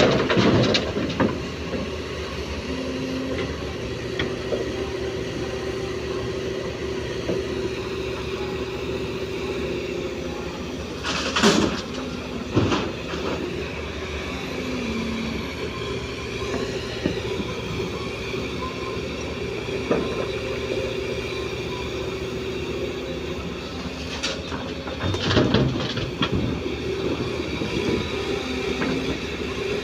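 Komatsu PC205 excavator's diesel engine running steadily under hydraulic load, its drone shifting in pitch now and then as the machine works. Sharp clanks break in several times: about a second in, twice near the middle, and in a cluster near the end.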